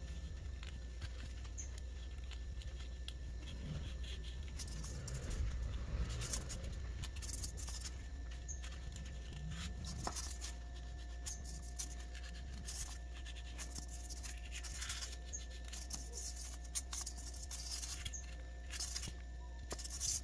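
Faint scratchy rustles and light clicks of a styrofoam block being pressed and rubbed against a tabletop, over a steady low hum.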